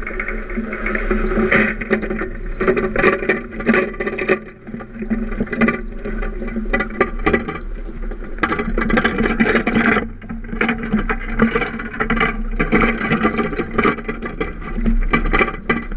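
Wind buffeting the microphone of a moving vehicle, with road noise and rattling, easing briefly twice.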